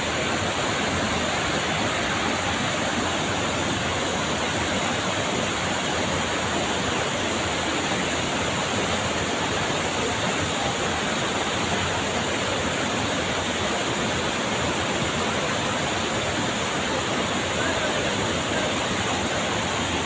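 Swollen river after heavy rain, its fast current rushing steadily.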